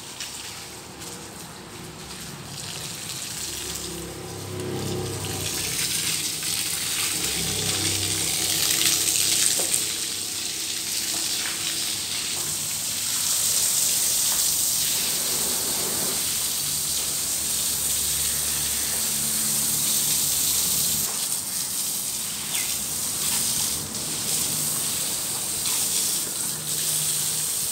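Water spraying from a garden hose onto wet paving stones: a steady hiss that grows louder about five seconds in.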